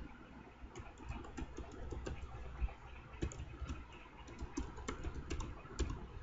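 Computer keyboard typing: irregular key clicks, several a second, as code is entered.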